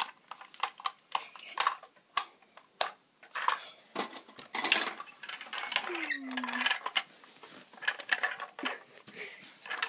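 Plastic toy car and toy pieces being handled, with irregular clicks, knocks and clatter against wooden dollhouse shelves, and scraping and rustling between them.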